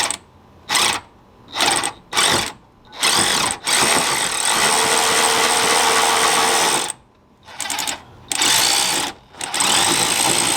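Cordless electric ratchet whirring in a string of short bursts, with one longer run of about three seconds in the middle, as it turns a long extension and swivel to back out a windshield wiper motor mounting bolt.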